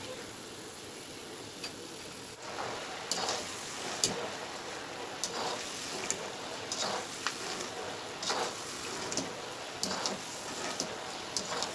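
Peanuts deep-frying in hot oil in a steel kadhai, a steady sizzle, with irregular clicks and scrapes from about two seconds in as a wire-mesh strainer stirs them against the pan.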